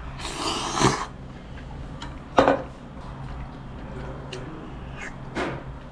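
Slurping a mouthful of thick hand-cut kalguksu noodles for about a second, then a sharp clink of utensils about halfway in, and near the end a quick slurp of broth from a spoon.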